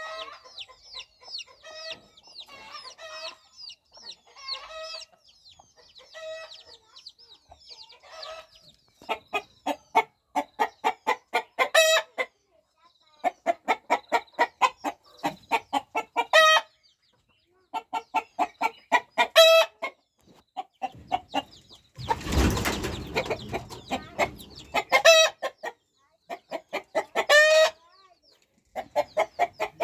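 Chickens clucking: repeated runs of quick clucks, several ending in a longer, louder call. A burst of rough noise about 22 seconds in lasts a couple of seconds.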